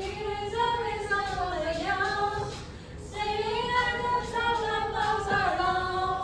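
Female voices singing a slow song, holding long notes that slide in pitch, with a short break about three seconds in.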